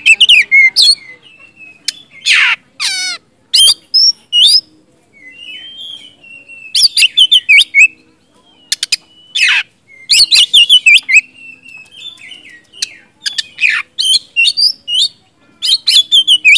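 An Oriental magpie-robin (kacer) singing loudly: bursts of rapid whistled notes and trills, with sharp falling notes and short pauses between phrases.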